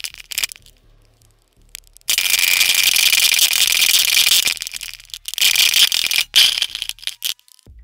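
Drum kit being played, mostly a hissing cymbal wash in two long stretches with short strikes around them.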